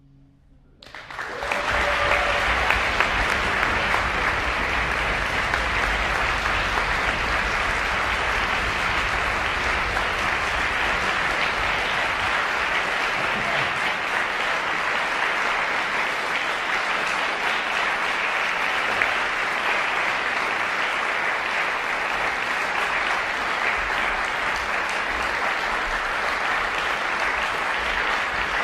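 Audience applauding, starting about a second in after a moment of silence and keeping up steadily.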